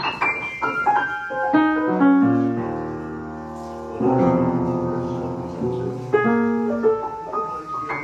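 Piano music: a run of notes stepping downward, then held chords, then more notes near the end.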